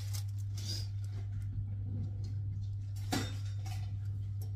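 A few soft clicks and taps of containers and utensils being handled on a kitchen counter, with one clearer knock about three seconds in, over a steady low hum.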